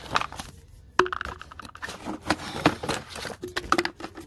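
Firework ball shells and cardboard tubes being handled: a string of irregular light knocks, taps and rustles, with a sharper knock about a second in.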